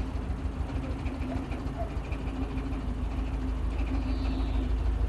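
Narrowboat's diesel engine running steadily with an even low throb.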